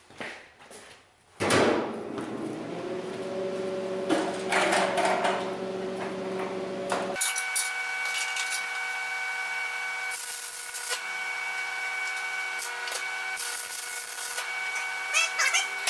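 Electric arc welding on steel: a steady crackling hiss with a constant machine hum, starting abruptly about a second and a half in after a few light knocks. The sound changes suddenly about halfway through and carries on steadily, with a few sharper crackles near the end.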